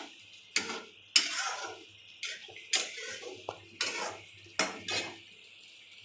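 Metal spatula scraping and knocking against an aluminium kadai while it stirs Manchurian balls through thick gravy: about seven separate clanks and scrapes over the first five seconds.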